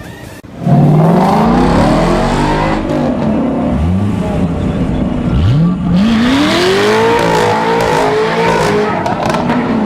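Supercar engine starting a hard pull under a second in and accelerating, its pitch climbing, dipping and climbing again in a second long sweep about halfway through.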